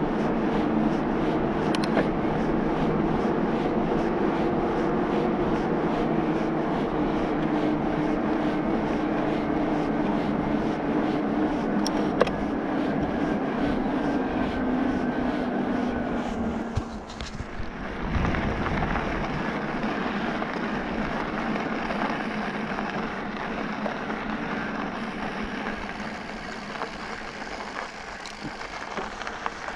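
Specialized Levo electric mountain bike being ridden: tyres rolling on tarmac under a steady hum. About 17 seconds in the sound dips briefly and the hum stops, and the tyres roll on a gravel track.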